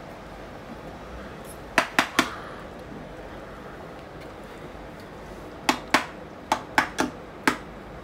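A metal spoon knocking against a plastic container as curd is scooped out for measuring. There are three quick sharp knocks about two seconds in, then six more spread over a couple of seconds near the end.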